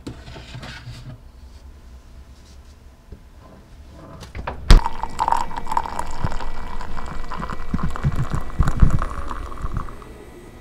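A sharp knock a little under halfway through, then a drink poured in a thin stream into a ceramic mug for about five seconds, the pouring sound steady until it stops shortly before the end.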